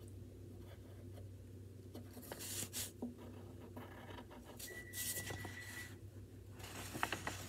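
Faint scratching of a wooden pencil on paper in short strokes as a drawing gets its finishing touches, then a few light paper clicks and rustles near the end as the sheet is lifted.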